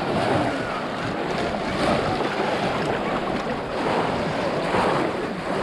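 Steady sloshing and splashing of water churned by many people wading waist-deep through a pond.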